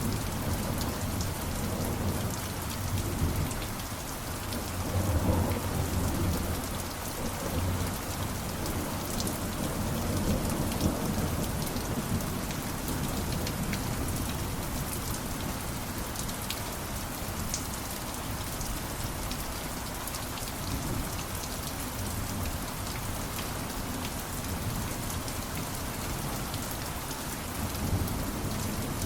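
Steady heavy rain falling, with low rolls of thunder rumbling up and fading several times, strongest about five seconds in and again near the end.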